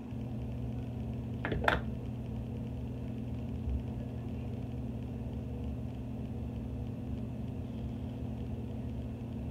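A steady low mechanical hum, with two brief sharp sounds about a second and a half in.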